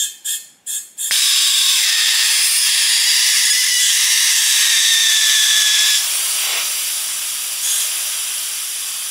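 Compressed air from a tyre-inflator gun hissing out past the blown cap seal of a pressurized 3D-printed PLA cylinder. It starts with three short blasts, then from about a second in a continuous loud hiss. Over the hiss a whistle dips slightly in pitch and stops about six seconds in.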